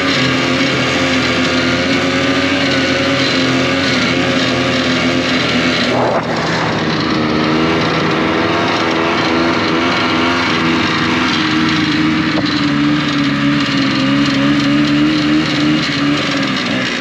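Snowmobile engine running steadily while under way, its pitch holding fairly even with a short break about six seconds in.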